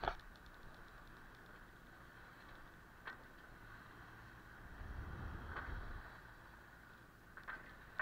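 Water washing faintly and steadily along a sailboat's steel hull as it sails through a calm sea, with a low wind rumble swelling about five seconds in and a couple of light clicks.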